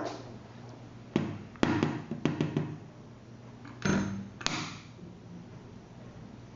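A handful of sharp knocks and clinks from hard objects being handled: one a little after a second in, a quick cluster up to about two and a half seconds, and two more near four seconds, over a faint low hum.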